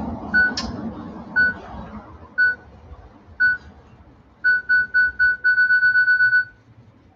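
Camera self-timer counting down with high electronic beeps: four beeps about a second apart, then four quicker ones, then a rapid run of beeps that stops about six and a half seconds in.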